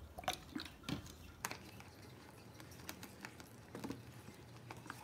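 Wooden spoon stirring thick fluffy slime in a plastic tub, giving faint, irregular sticky clicks. The borax activator is setting the slime, and it is getting hard to stir.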